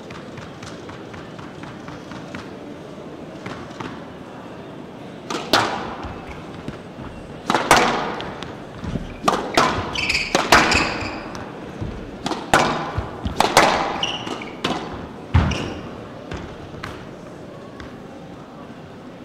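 Squash rally on a glass court: a dozen or more sharp cracks of racket strikes and the ball hitting the walls, with short squeaks of shoes on the court floor. The rally starts about five seconds in and stops about fifteen seconds in, with steady hall murmur on either side.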